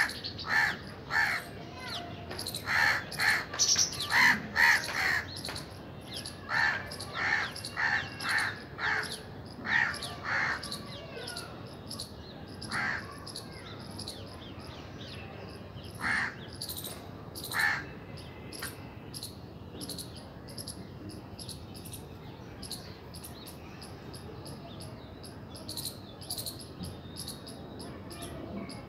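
Crows cawing: a quick run of short, harsh caws, then a few single caws that die away about halfway through. Faint high chirps repeat steadily underneath.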